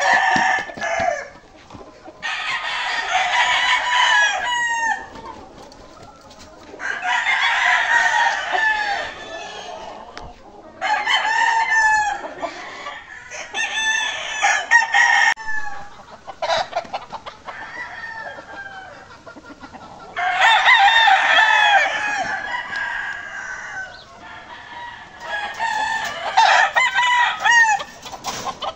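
Gamecock roosters crowing one after another, about seven loud crows of two to three seconds each with short pauses between them.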